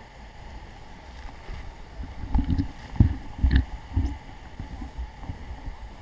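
Large waterfall's steady rush of heavy falling water and spray. From about two seconds in, a run of low thumps of buffeting on the microphone cuts through it.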